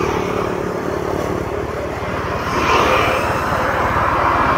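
A motorbike engine running while under way, with street traffic noise around it; it gets a little louder about two and a half seconds in.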